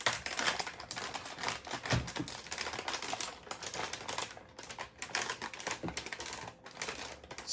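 Crinkling and rustling of an anti-static plastic bag being opened and handled, a dense run of small crackles and clicks, with a soft knock about two seconds in.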